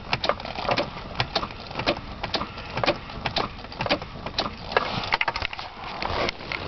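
1995 Nissan Maxima's engine being cranked on the starter in the cold without catching: an uneven run of sharp clicks and clatter, about four or five a second. The car is hard to start when cold.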